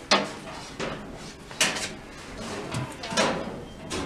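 A few sharp knocks and clatters of hardware being handled: one at the very start, another just under a second in, the loudest about a second and a half in and one more about three seconds in. No steady motor hum is heard, so the blower is not running.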